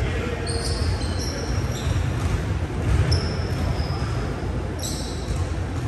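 Basketball shoes squeaking on a hardwood court during play, a scattering of short high squeaks, with a basketball bouncing.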